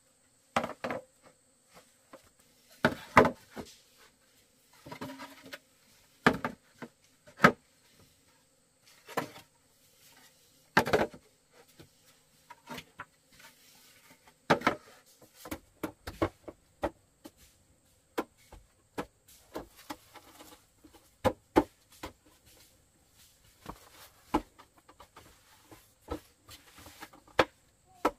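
Irregular knocks, taps and clatter of objects being handled, some sharp and loud, with no steady rhythm. A faint, steady high hum lies underneath.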